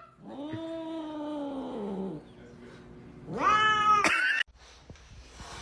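Cat calling twice: a long, low, drawn-out yowl that rises and falls, then a shorter, higher meow that rises in pitch about three seconds in.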